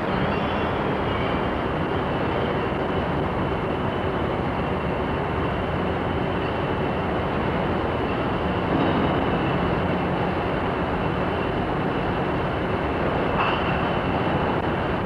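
Steady mechanical din of bottle-making machinery, an even rushing noise with a faint high whine and a low hum running through it.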